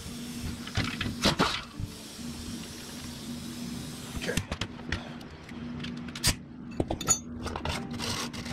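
Metal clinks and knocks as an air ratchet, sockets and bolts are handled and set down on a concrete floor, the sharpest a little past six seconds in, with a faint hiss of air that stops about four seconds in.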